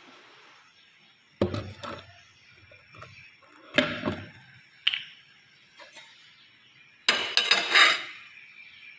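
Ceramic plates clinking and knocking against each other and the stovetop as they are handled, in several short separate clatters, with the longest and loudest near the end.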